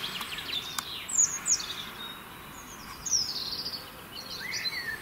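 Small birds singing and calling outdoors, with quick high downward-sweeping notes about a second in and again around three seconds in, and lower chirps near the end.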